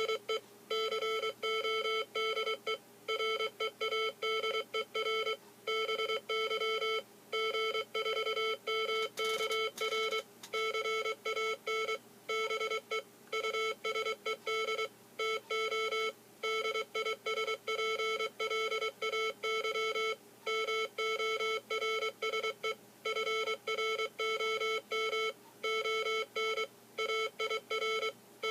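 Morse code sent from a WinKeyer's stored memory and sounded through a speaker: a buzzy mid-pitched beep keyed on and off in quick dots and dashes, with short pauses between groups.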